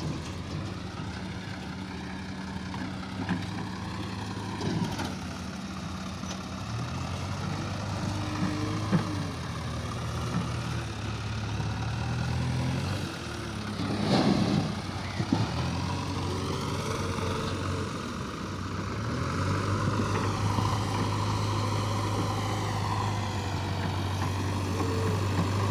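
JCB 3DX backhoe loader's diesel engine running and revving up and down as it works, over a tractor's engine. About halfway through there is a short, louder rush of noise as a bucket of mud is dumped.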